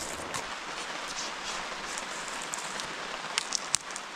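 Steady rain falling, with a few sharp ticks close together a little over three seconds in.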